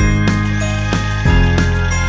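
Background music: a melody of evenly spaced notes, about three a second, over a held bass.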